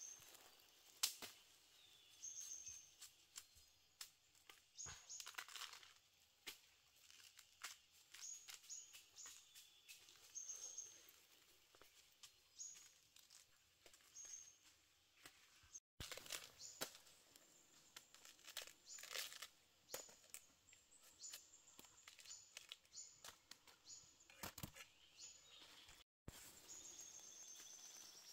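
Faint forest ambience: short, high bird chirps repeating, with scattered crackles and snaps of dry leaves and twigs being handled and stepped on.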